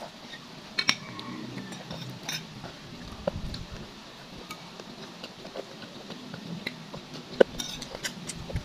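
Metal spoon and fork clinking and scraping against a bowl while eating rice, in scattered light clinks a second or more apart.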